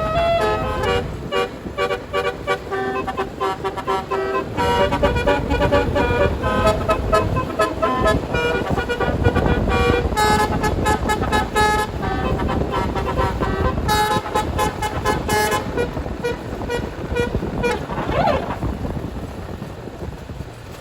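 Indonesian tour bus's 'telolet basuri' musical air horn playing a melody of stepped notes, with quick repeated staccato runs, over low engine and road rumble. The horn stops after about sixteen seconds, leaving the rumble.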